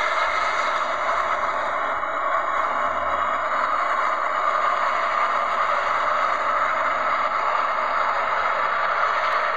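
Steady, even roar of a Boeing 777's jet engines as the airliner rolls down the runway after touchdown, its spoilers raised.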